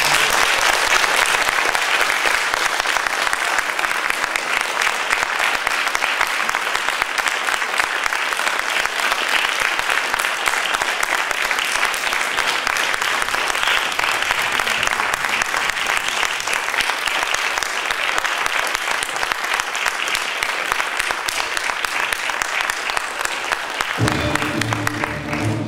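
Audience applauding steadily, a dense clapping from many hands. Orchestral music comes back in near the end.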